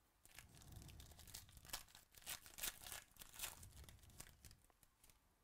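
Faint tearing and crinkling of a 2018 Chronicles Baseball trading-card pack wrapper as it is ripped open by hand, a run of crackly rips that is loudest around the middle.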